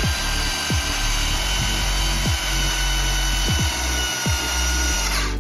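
KPT KDD12V 12 V cordless drill with a twist bit boring into wood, a steady motor whine over the cutting noise, which stops just before the end.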